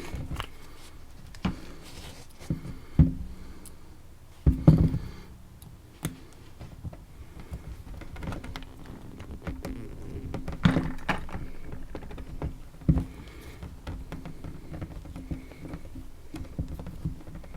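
Small metal tools and a padlock being handled: scattered clicks, light knocks and a few sharper thunks, as a hex key works at a thread-locked hex screw in the padlock's body.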